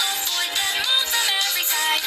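Music: a bright, high melody of short notes, some of them bending in pitch.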